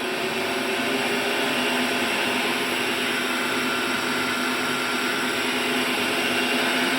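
Bode VP40 welding positioner's electric drive motor and Carter oil-filled variable-speed gearbox running under power, a steady motor hum and whine while its speed is run up.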